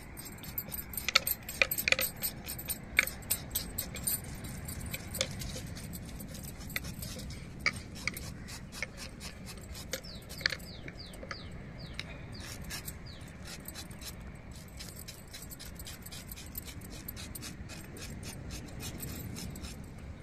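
A knife cutting and scraping a pomfret on a sack, with the cook's bangles clinking at her wrists in quick, irregular clicks. The clicks are thickest a second or two in and again around ten seconds in.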